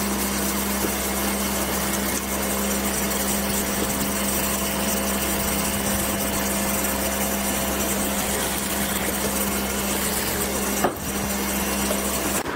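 Industrial sewing machines running in a garment workshop with a steady mechanical hum, broken by a short click and dip about eleven seconds in.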